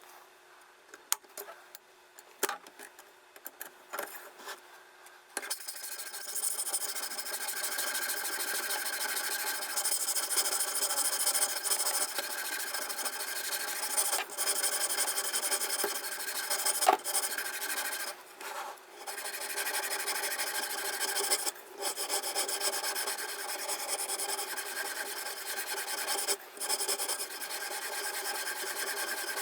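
Diamond sharpening stone of a guided knife sharpener rasping along a folding knife's blade edge in continuous strokes, starting about five seconds in after a few light clicks. The rasping pauses briefly a few times.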